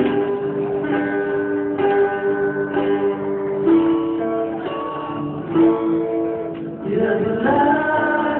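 Several acoustic guitars playing a melody together, picked and strummed notes changing every second or so. Near the end a man's voice starts singing over them.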